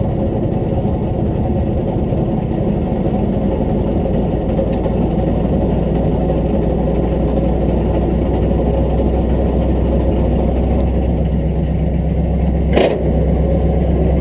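Tow truck's engine running steadily at a raised idle, ready to drive the Holmes 440 wrecker's winch for a heavy pull. A single brief knock sounds near the end.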